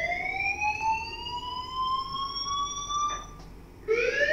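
Siren-like alarm sound effect marking the countdown reaching zero: a slowly rising wail that cuts off about three seconds in, then starts rising again near the end.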